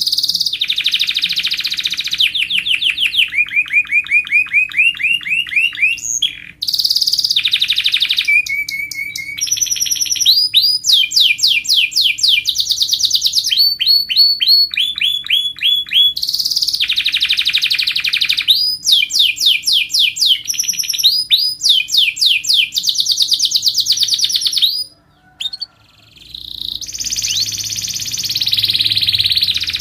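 Domestic canary singing, a long song of fast trills: each phrase is a quick run of repeated notes before switching to the next. There is a short break about 25 seconds in.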